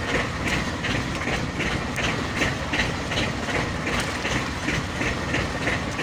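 Fishing boat's engine running steadily, with a regular clacking about two and a half times a second over a constant rumble.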